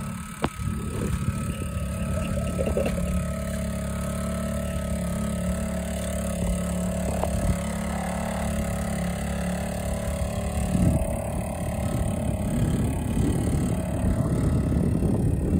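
Small Honda four-stroke outboard motor running steadily on an inflatable dinghy. About eleven seconds in, the steady note breaks up into a rougher sound.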